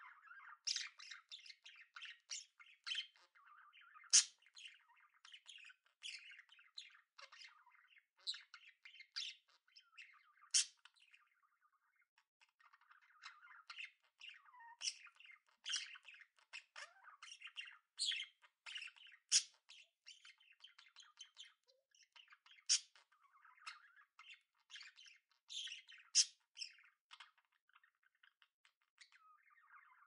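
Budgerigars chattering and warbling almost without a break: a soft, continuous twitter with frequent sharp, high chirps, and a brief lull about twelve seconds in.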